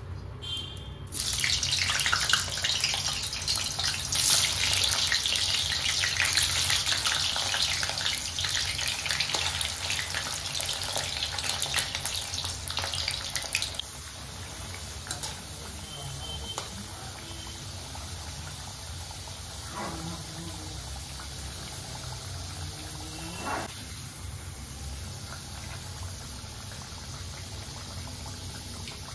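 Potato pieces deep-frying in hot oil in an iron kadai: a loud, dense sizzle starts about a second in as they hit the oil, then about halfway through drops abruptly to a quieter, steady sizzle.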